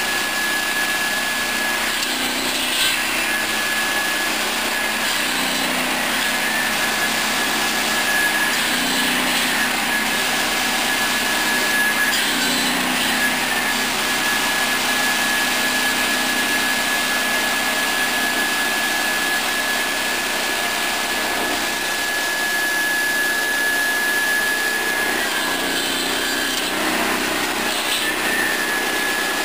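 Swing saw's 700 mm circular blade spinning, driven by a 13 hp petrol engine running steadily with a high whine. The blade cuts through firewood a few times, the whine dipping briefly at each cut.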